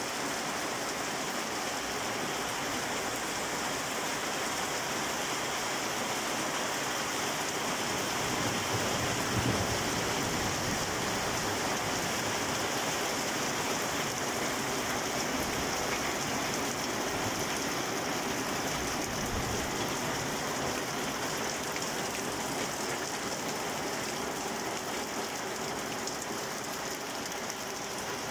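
Steady rain falling on brick paving and garden plants, a little heavier about a third of the way in.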